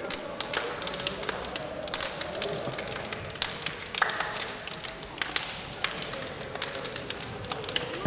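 Many hand slaps from players high-fiving each other, sharp claps coming irregularly and in quick succession.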